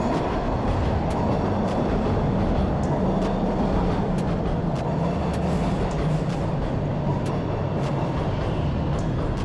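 Toronto Rocket subway train running along the platform: a loud, steady rushing noise of wheels on rails, with short sharp clicks every second or so.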